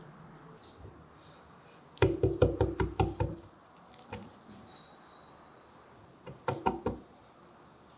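A knife striking a cutting board while chicken is cut, in two quick runs of knocking strokes: about ten rapid strokes, then a shorter burst of about five.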